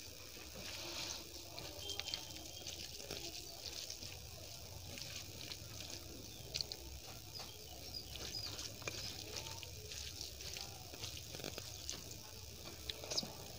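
Faint, soft wet squishing of fingers mixing and mashing rice with dal and fried okra on a plate, with scattered small ticks as the fingers touch the plate.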